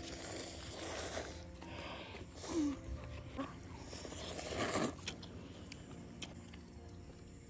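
Noodles being slurped into the mouth: three drawn-in sucking slurps, a short one about two and a half seconds in and the longest and loudest about four seconds in.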